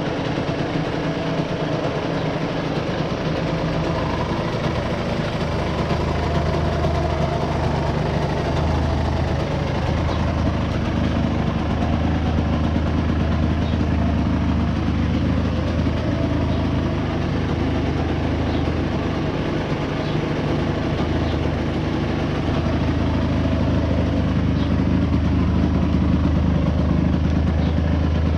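The stock two-stroke single-cylinder engine of a 1994 Yamaha DT125R, running steadily with little change in pitch.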